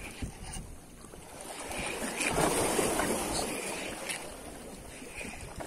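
Wind on the microphone over choppy sea water, a steady rushing haze that swells loudest about two to three seconds in.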